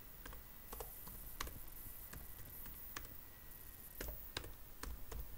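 Computer keyboard being typed on slowly: scattered, irregular single key clicks, faint.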